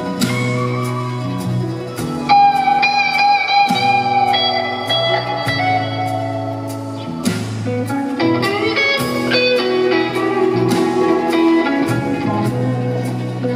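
Instrumental music with a guitar playing a melodic lead of held, plucked notes over a steady bass line and chords.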